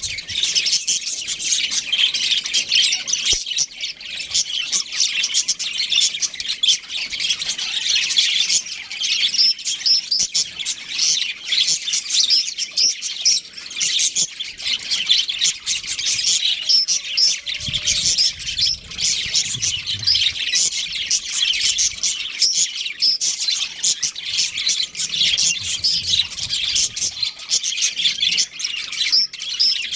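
Budgerigars chattering and chirping continuously, many rapid overlapping chirps and warbles from several birds.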